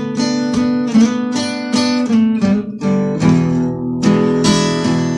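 Acoustic guitar playing a blues accompaniment figure, a steady run of picked or strummed strokes that changes to a fuller, lower chord pattern about three seconds in.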